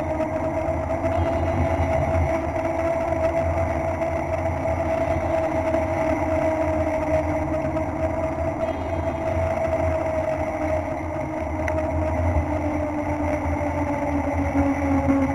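Wind rumbling on the microphone of a camera riding on a moving bicycle, with a steady hum whose pitch slowly rises and falls.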